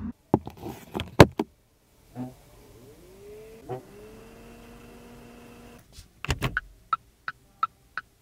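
A few sharp clicks, then a small electric motor in a Geely Galaxy E8 whining steadily for about three seconds, followed by the car's turn signal ticking at about three ticks a second.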